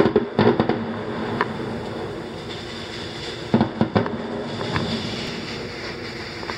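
Aerial firework shells bursting: a quick run of bangs near the start, a single bang at about a second and a half, and three more in quick succession around three and a half to four seconds in, over a steady background rush.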